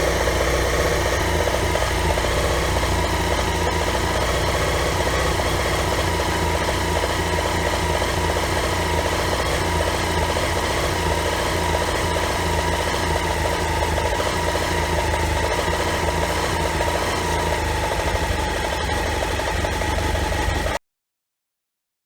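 BMW F800 GS motorcycle's parallel-twin engine idling steadily.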